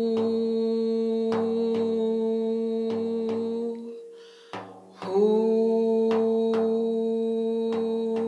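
A long, held "hu" (the Qigong healing sound) voiced into the side of a Remo Renaissance frame drum, over a steady pulse of soft hand taps on the drum head, falling roughly in pairs. The held tone stops about four seconds in, and a second long "hu" begins about a second later.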